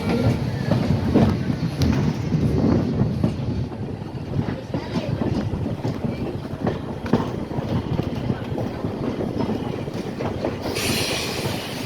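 Steel wheels of a moving railroad passenger coach rumbling along the track and clicking over the rail joints. A steady hiss starts near the end.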